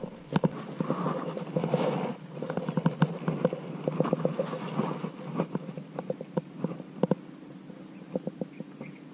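Water hyacinth stems and leaves crackling and rustling as they are pressed down and flattened by hand: a dense run of snaps and crackles for about five seconds, then only scattered ones.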